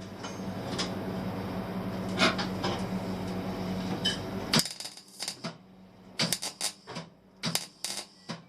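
MIG welder running a weld bead on car floor-pan sheet metal: a steady crackling arc with the welder's mains hum, stopping suddenly a little past halfway. After it comes a string of sharp metallic clicks and taps.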